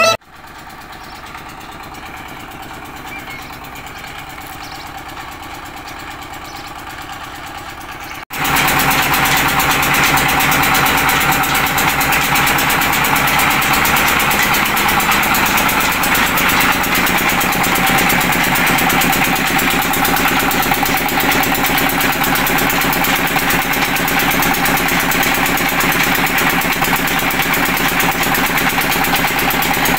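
Single-cylinder stationary diesel engine running steadily while belt-driving a village flour mill's grinder. It is quieter for about the first eight seconds, then after an abrupt break it is loud and close, holding an even running note.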